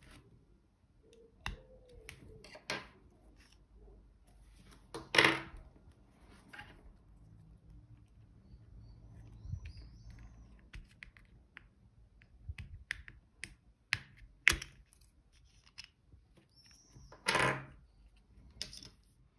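Small precision screwdriver and fingers working the plastic shell of a Seat remote key fob apart: scattered clicks and scrapes of plastic, with two louder half-second scrapes about five seconds in and near the end.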